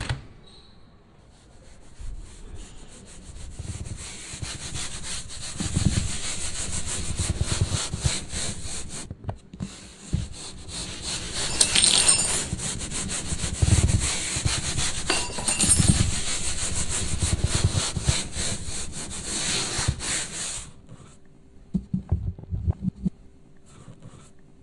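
A continuous rough rubbing noise that stops about 21 seconds in, followed by a few low knocks.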